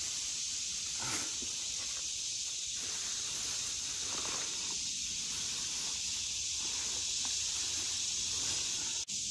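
A steady high-pitched insect drone, with an old plastic bag rustling and crinkling as gloved hands stuff things into it, most noticeably about a second in and again around four seconds in.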